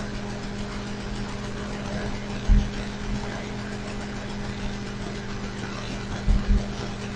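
Steady low hum over faint background noise, with a couple of soft low thumps, one about two and a half seconds in and a pair near the end.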